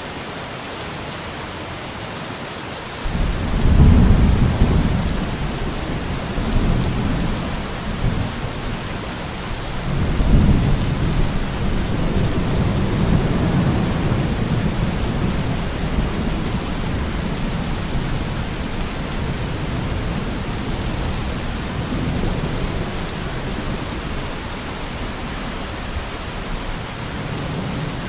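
Thunderstorm: steady heavy rain hiss, with rolling thunder rumbling in about three seconds in and swelling again around ten seconds, then grumbling on under the rain.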